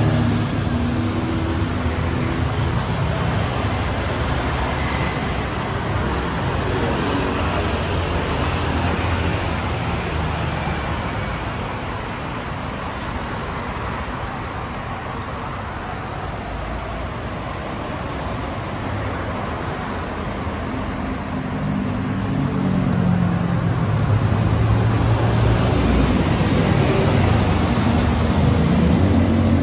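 Road traffic on a multi-lane city street: cars and motorbikes passing in a continuous wash of tyre and engine noise, with a low engine drone that grows louder in the last third.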